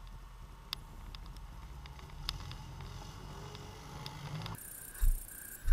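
ATV engine running low and steady while rolling down a dirt trail, with a few sharp clicks. About four and a half seconds in the sound changes abruptly to a hissier one with two loud thumps.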